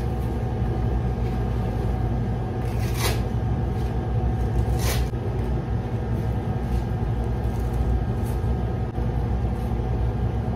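Steady low mechanical hum throughout, with short rasping scrapes about 3 and 5 seconds in, then fainter ones, as the straps of a scoliosis back brace are pulled and fastened around the waist.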